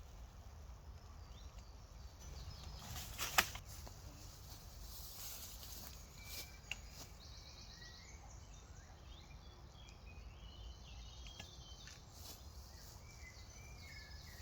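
Outdoor woodland ambience: small birds chirping faintly, with rustling from gear being handled and one sharp click about three seconds in.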